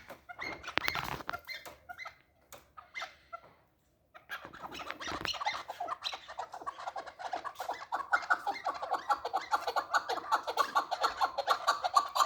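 Chukar partridge calling. Short notes come first, then a brief pause, then a fast, steady run of repeated notes that grows louder toward the end.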